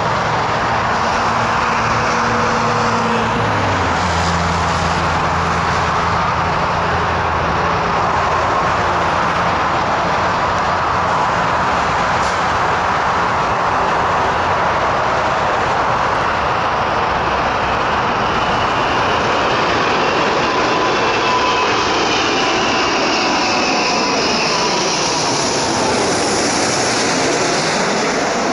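Airbus A380 airliner on final approach, its four turbofan engines making a steady jet roar. Whining tones slide in pitch as it comes in low overhead near the end.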